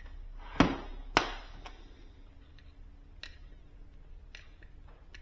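Small metal fittings and tools being handled on a workbench: a few sharp clicks and taps, the two loudest close together near the start, then lighter scattered ticks.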